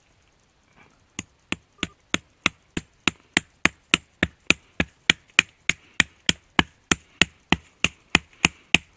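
Pocket knife blade hacking into a sapling's trunk to cut a wedge out: a fast, steady series of sharp chopping strikes, about three to four a second, starting about a second in.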